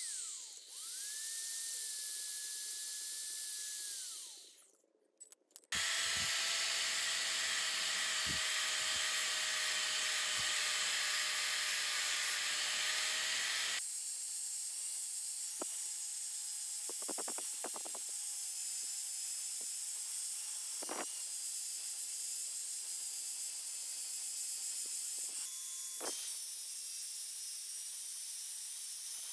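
A power tool's motor whines steadily, dips and spins back up, then winds down about four seconds in. After a short gap, an electric angle grinder with an abrasive disc runs steadily, grinding rust off the steel arm of an old car jack.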